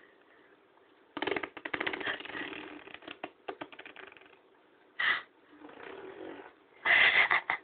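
A baby making funny throaty noises in several bursts. There is a rattly one of rapid pulses about a second in, a short one about five seconds in, and a louder one near the end.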